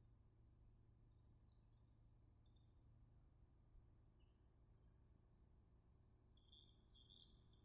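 A songbird singing faintly in a quick run of short, high chirping phrases with hardly a pause between them.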